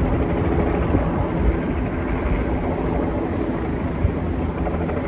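Steady engine drone holding one pitch, with a brief thump about four seconds in.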